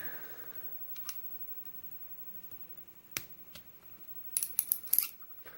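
Small sharp metallic clicks from a Ruswin lock cylinder being taken apart with a shim and plug follower: a few scattered clicks, then a quick cluster of clicks about four and a half seconds in.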